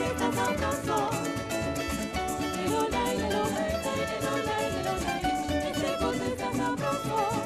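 Live parang band playing an instrumental passage between sung verses: plucked and strummed strings led by a mandolin over a steady percussion rhythm.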